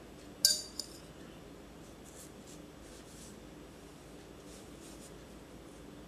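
Metal clinking against a drinking glass of water: one sharp clink about half a second in and a lighter one just after, then a few faint small clinks and rustles.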